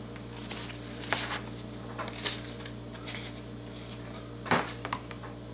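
Paper wrapper being peeled off a can of refrigerated crescent roll dough with a few soft rustles and clicks, then one sharp pop about four and a half seconds in as the cardboard tube bursts open.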